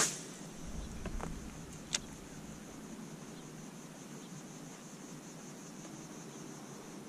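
A fishing cast with a rod and reel: a sharp whoosh as the rod whips forward, a soft low rumble about a second later, and a single sharp click near two seconds in. After that, only a faint steady high hiss.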